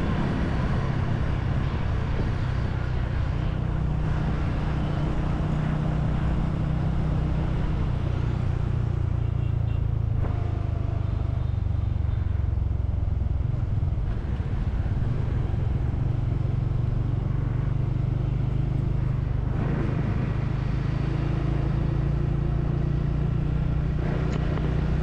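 Motorcycle engine running at a steady, even speed while riding, with a constant rush of road and wind noise.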